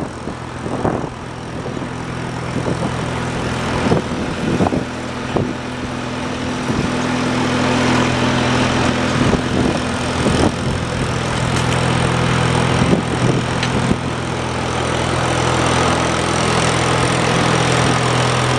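Wisconsin THD air-cooled gas engine running steadily on a roofing conveyor, its hum growing somewhat louder toward the end, with occasional sharp knocks or clanks from the machine.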